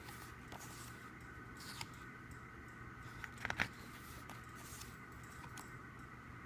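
Album packaging and its paper and plastic contents being handled, giving scattered faint ticks and rustles and a quick cluster of sharp clicks about three and a half seconds in, over a steady background hum.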